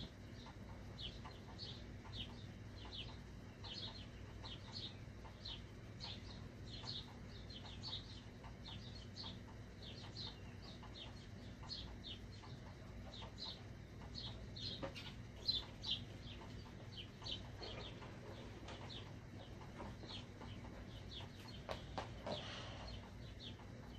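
Black Sharpie marker squeaking on the rubber of an inflated balloon, a short high squeak with each stroke, two or three a second, as the lines are drawn and filled in. A few louder squeaks and rubs stand out in the second half.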